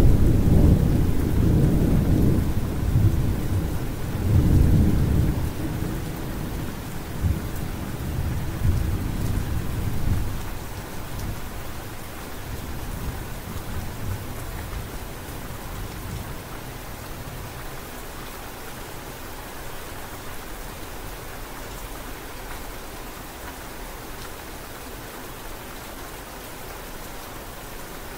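Steady rain falling, with a long roll of thunder that is loud at the start and dies away over the first ten seconds or so.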